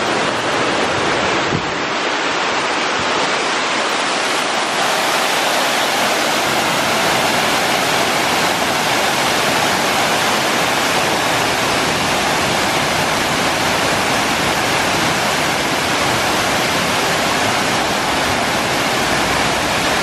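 Man-made waterfall cascading down stepped rock ledges into a pool: a steady, loud rush of falling water that grows fuller over the first few seconds, then holds.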